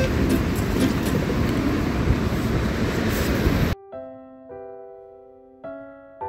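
Loud, steady rushing outdoor noise that cuts off suddenly a little over halfway through. It gives way to slow, soft piano notes, about one a second.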